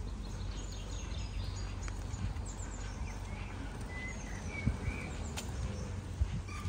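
Small songbirds chirping and singing in short whistled phrases over a steady low rumble, with a couple of soft thumps in the second half.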